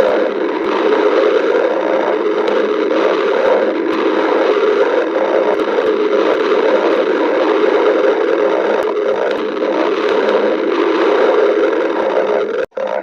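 Stomach growling: a long, steady rumble that cuts out for a moment near the end.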